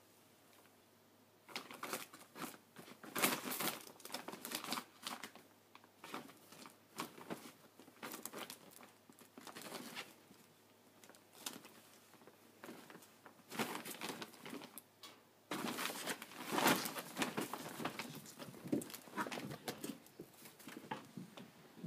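A cat pouncing into and wrestling with a gift bag: irregular bursts of crinkling and rustling that begin about a second and a half in, with the loudest flurries a few seconds in and again past the middle.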